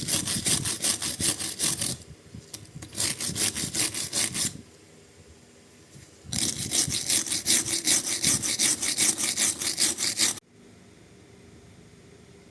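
A hand tool worked back and forth in quick sawing strokes, about five or six a second. There are three bouts; the last and longest stops abruptly near the end.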